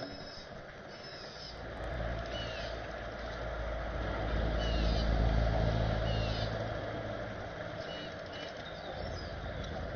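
A passing engine's low, humming rumble swells to its loudest about halfway through and then fades away. Short, high bird chirps and whistles sound here and there over it.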